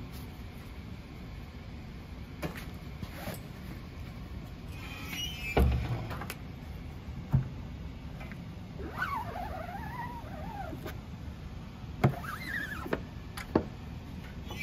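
Manual screen-printing press being worked: a squeegee scraping ink across the screen mesh, with knocks and clunks from the press's screen frame, the loudest a dull thud about five and a half seconds in. A few short squeaks that glide up and down come near the middle.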